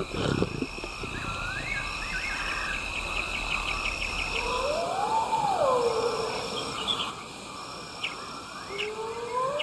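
Night bush ambience: insects chirring steadily, with regular pulsed insect calls above them and a short trill. Twice, a bird gives a clean whistled call about a second long that rises and falls.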